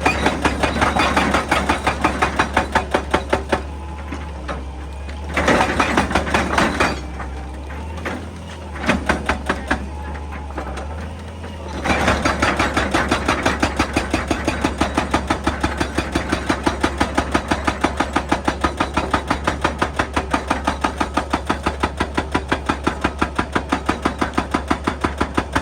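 Excavator-mounted hydraulic breaker hammering rock in rapid, even blows, about five a second: several short bursts in the first half, then continuous hammering from about halfway on. The excavator's engine runs steadily underneath.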